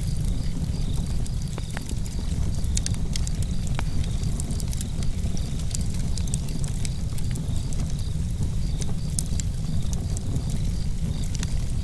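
Outdoor campfire crackling, with scattered sharp pops over a steady low rumble of flames and breeze. Crickets chirp in an even pulse in the background.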